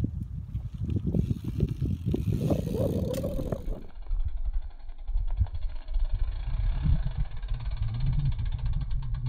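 Wind buffeting the camera microphone: a fluctuating low rumble.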